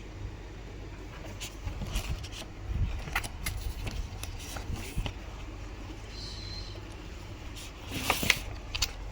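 Scattered clicks, knocks and scrapes of something being handled, over a steady low hum, with a louder cluster of clicks about eight seconds in.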